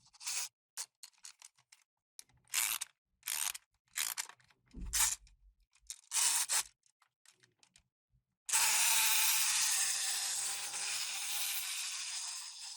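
Short scraping and rubbing strokes, as of dry material being worked by hand, then a steady hiss starting about eight and a half seconds in that slowly fades.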